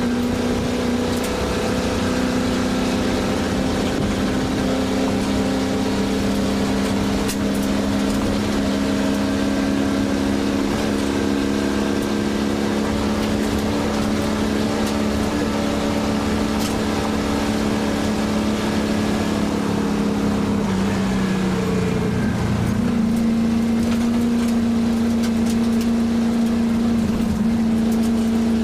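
1967 Ford Shelby GT350's V8 engine pulling hard under load, heard from inside the cabin, its note climbing slowly. About three quarters of the way through the pitch dips briefly, then settles at a steady higher note.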